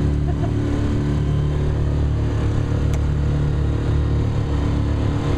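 Small motorboat's engine running steadily, heard from on board as a constant low drone under a rush of wind and water noise.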